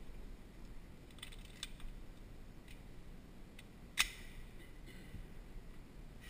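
Faint clicks of a pistol magazine being handled over a shooting bench: a few soft clicks about a second in and one sharper click about four seconds in.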